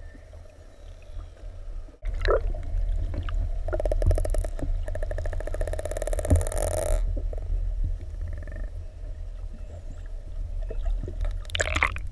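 Killer whales vocalizing underwater: a short call about two seconds in, then a rapid pulsed buzz lasting about three seconds, and another call near the end, over a steady low rumble of water.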